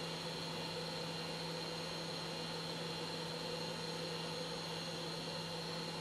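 Steady electrical hum and hiss with a faint high whine, unchanging throughout, with no distinct clicks or tool sounds.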